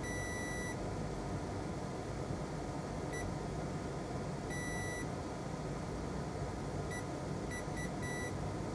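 Digital multimeter's continuity beeper sounding in seven steady high beeps, some brief and some about half a second long, in an uneven pattern as the probes make and break contact on the pads. Each beep signals a continuous path between the filter and the FPC connector.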